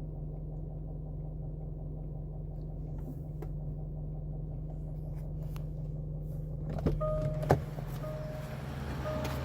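Range Rover 4.4 TDV8 diesel idling in reverse while stationary, heard from inside the cabin, with faint clicks over the steady engine hum. The owner cannot trace this clicking, which a garage suspects comes from the gearbox. About two thirds of the way in come two sharp knocks, and then a short chime that repeats about once a second.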